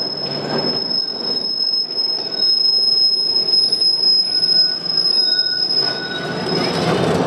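Sunderland Corporation Tramways No.16 double-deck tram's steel wheels squealing on curved track as it passes: one long, steady high-pitched squeal that fades out near the end.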